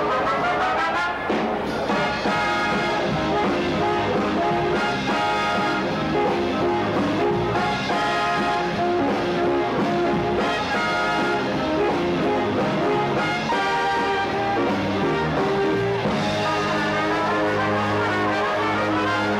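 A big band with a brass section of trumpets and trombones playing a tune in sustained chords.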